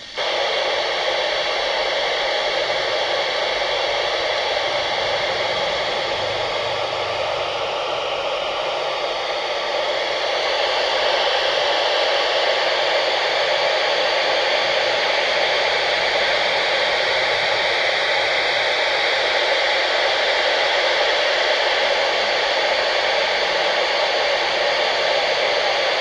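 Steady FM static hiss from a handheld ham transceiver's speaker, with the squelch open on the 29.6 MHz 10-metre FM channel between transmissions. The hiss gets slightly louder about ten seconds in.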